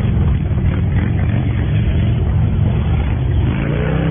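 Large touring motorcycle engines running at low speed during slow cone-course manoeuvring, with a short rising rev near the end.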